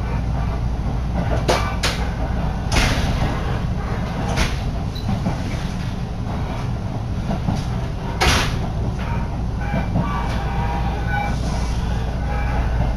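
Inside a moving electric train on the JR Minobu Line: the steady low rumble of the running train, with a few irregular sharp knocks and clatters.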